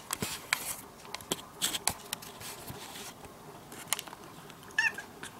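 A string of light clicks and rustles, then a brief high-pitched chirp-like meow from a ginger-and-white domestic cat near the end.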